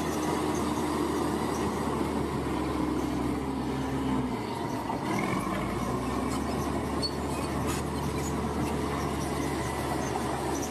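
Bulldozer's diesel engine running under load with metallic squealing and clanking from its steel tracks. The engine's low hum dips briefly about four seconds in.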